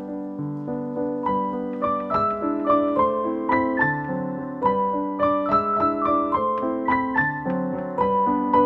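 Background piano music: a slow, gentle melody of single notes over sustained lower chords, with higher notes coming in about a second in.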